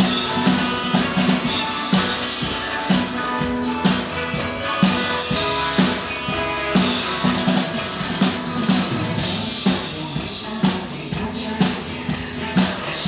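Drum kit played live along to a recorded pop song: a steady beat of kick, snare and cymbals over the track.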